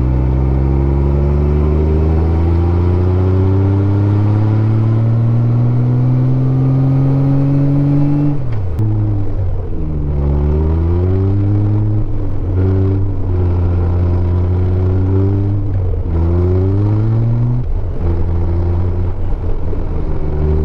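Honda Gold Wing 1500's flat-six engine running under way. Its pitch rises slowly for about eight seconds, then drops and climbs again several times as the bike changes speed.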